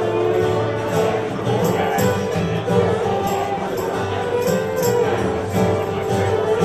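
Live band playing an instrumental passage of a country-rock song, with tambourine shaking on the beat over sustained pitched instruments.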